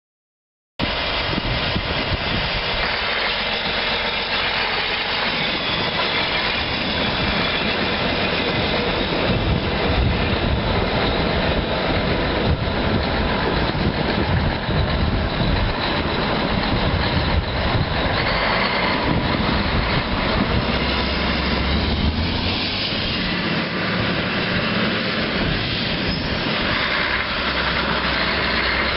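John Deere 9630's 824 cubic-inch six-cylinder turbo diesel engine running steadily. It cuts in sharply about a second in and holds an even level.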